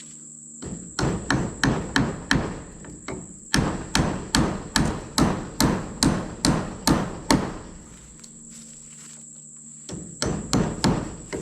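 Hand hammer striking wood in quick runs of blows, about three a second, with two pauses, while a temporary support for a porch 4x4 post is fastened.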